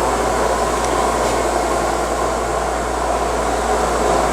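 Steady fan-like hum of the powered-up CNC lathe sitting idle, over a constant low drone.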